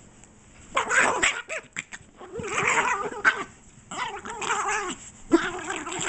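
Small dog making a play growl, a wavering gargling noise in about four bouts, while being roughhoused by hand.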